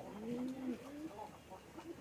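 Several domestic pigeons cooing, their low gliding calls overlapping, loudest in the first second.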